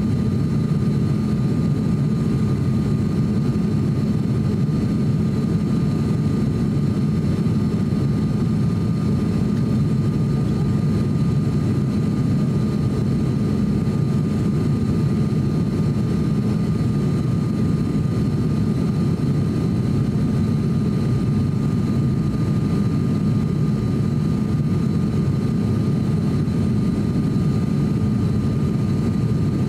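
ATR 42-600 turboprop engines and propellers heard from inside the cabin on final approach: a steady low drone with a thin high whine running through it.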